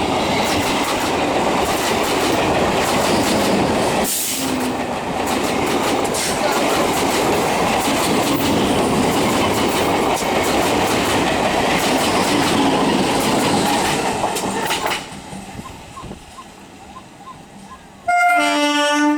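Electric multiple unit train crossing a rail bridge, its wheels clattering loudly over the rail joints with many sharp clicks for about fifteen seconds, then falling away as it clears the bridge. Near the end a loud, steady train horn blast sounds for about a second.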